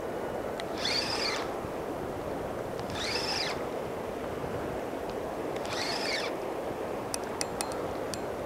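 A bird calling three times, each call a short rise-and-fall note, about two and a half seconds apart, over a steady rushing background. A few faint ticks come near the end.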